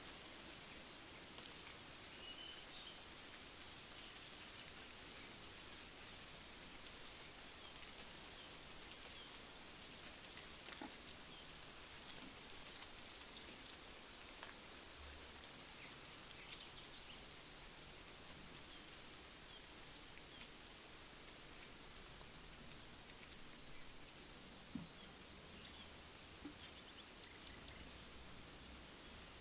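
Faint, steady patter of light rain, with scattered single drips ticking through it.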